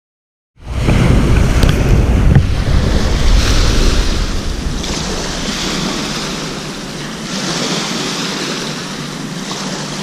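Small waves lapping on a lake shore, coming in swells about every two seconds, with wind rumbling on the microphone that is heaviest in the first few seconds. The sound starts suddenly about half a second in, after silence.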